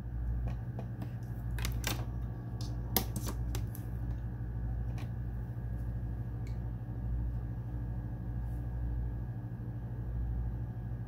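Open-bench desktop PC running, with a steady low hum throughout, while the freshly repaired GTX 1070 is powering up. Irregular light clicks sound mostly in the first half.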